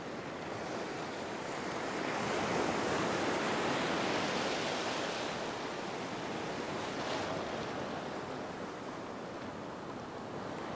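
Ocean surf breaking and washing up a sandy beach, growing louder a couple of seconds in and then slowly easing off.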